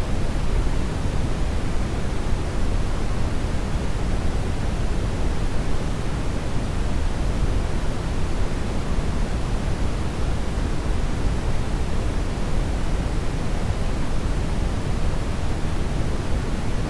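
Steady, unchanging generated noise, a full hiss heavier in the low end and thinning toward the top, like pink noise rather than the treble-heavy purple noise it is billed as.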